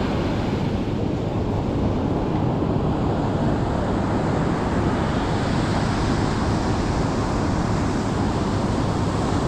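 Steady rush of surf washing onto the beach, with wind buffeting the microphone.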